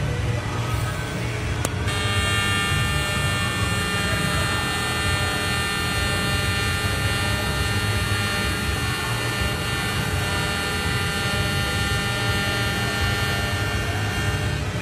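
Miller Dynasty 280DX TIG arc in pulse mode, struck with a click about two seconds in and then held as a steady high-pitched buzz made of many even tones. A low rumble runs underneath throughout.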